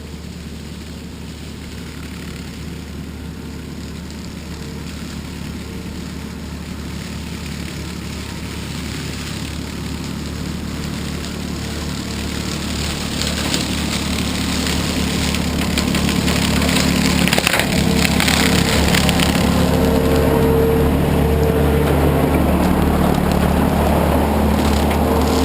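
Skid steer engine running under load with its brush mower attachment cutting weeds. It grows steadily louder over about the first fifteen seconds, then holds steady.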